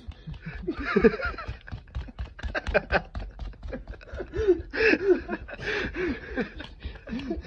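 A dog vocalising in a run of short whines and grumbles, each call rising and falling in pitch, over rustling and handling noise.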